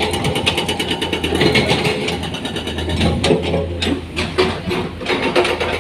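Heavy diesel engine running steadily at a low rumble, with a run of sharp knocks and clatters about halfway through.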